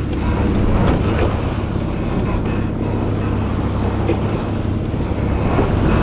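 Rushing wind buffeting the microphone and sea water rushing along the hull of an Oyster 485 sailing yacht under way in open ocean swell, with a steady low drone from the yacht's engine, which is running for motor sailing.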